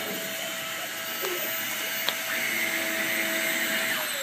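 Vacuum cleaner running steadily with its motor whine; near the end the whine starts to fall in pitch. There is one short click about two seconds in.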